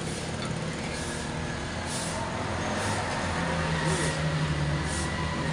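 A steady engine rumble over a constant background hiss, growing a little louder about halfway through.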